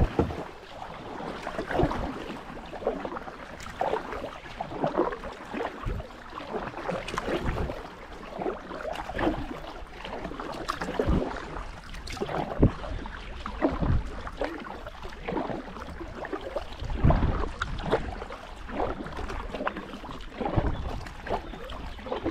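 Kayak paddling: a double-bladed paddle dipping into the water, with a splash and drip from the blades at each stroke, roughly once a second.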